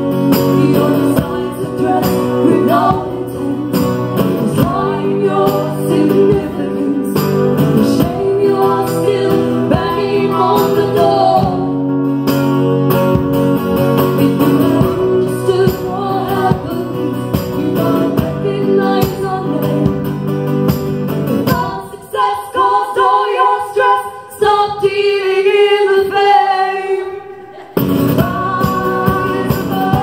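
Two women singing together over two strummed acoustic guitars. About eight seconds before the end the low strumming falls away and the voices carry on almost alone, then the full sound returns about two seconds before the end.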